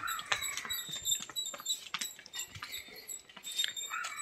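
Hooves of a trotting bull and a man's running footsteps on a brick-paved lane: a quick, irregular run of knocks and scuffs.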